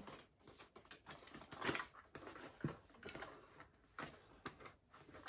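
Packaging being worked open by hand: irregular rustling, scraping and small clicks of plastic and cardboard, a package that is hard to open.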